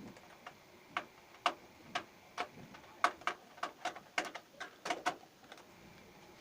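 Irregular run of sharp clicks and taps, roughly two a second, densest in the middle, from hardware being fitted and fastened into a desktop PC case.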